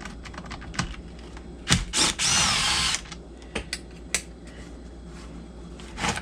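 A cordless power driver whirs in one short burst of about a second, a couple of seconds in, with a gliding whine. Sharp clicks and knocks of tools and small metal parts are heard around it.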